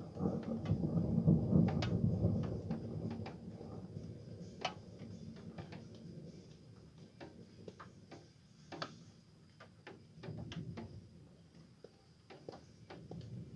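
Rolling thunder: a deep rumble swells at once, is loudest in the first couple of seconds and dies away over several seconds, with a second, softer rumble about ten seconds in. Scattered sharp clicks are heard throughout.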